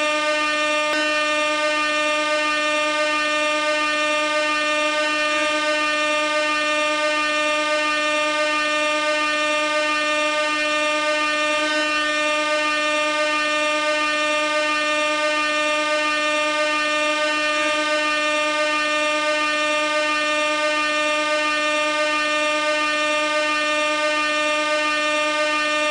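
Gas air horn sounding in one continuous, unbroken blast, held at a single steady pitch with no change in loudness.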